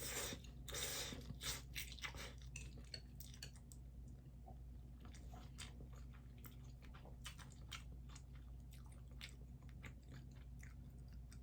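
A person eating a bowl of tomato-flavoured luosifen rice-noodle soup: soft chewing with many small mouth clicks, with a few louder noisy bursts in the first second or so.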